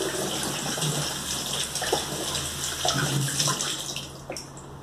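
Kitchen tap running water into a plastic Tupperware canister as it is rinsed, with a few light knocks as the container is handled. The running water fades near the end.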